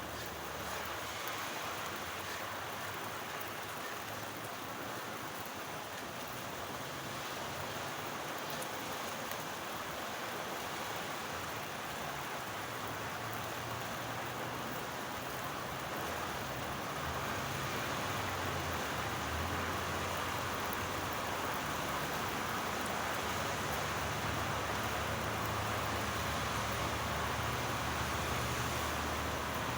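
Steady rain falling, a dense even hiss of drops, growing a little louder about halfway through, with a faint low rumble underneath.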